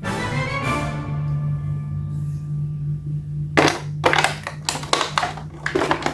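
Quiet background music: a steady low tone with notes fading away. In the second half come a run of about eight sharp clicks or knocks.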